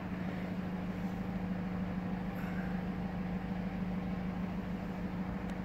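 Mercedes-Benz Sprinter refrigerated box van running at a standstill: a steady mechanical hum with one constant low tone.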